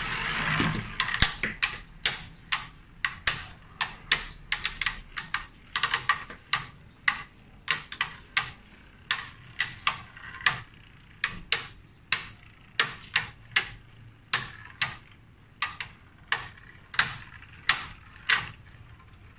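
Two spinning Beyblade Burst tops clashing in a plastic stadium: sharp, irregular clacks, roughly two or three a second, as they knock together again and again. At the very start a short launcher whir dies away.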